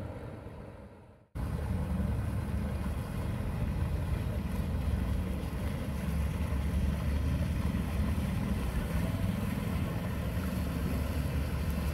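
Outboard engines of a center-console boat running past at steady speed, a low continuous drone. The sound fades out and cuts back in about a second in.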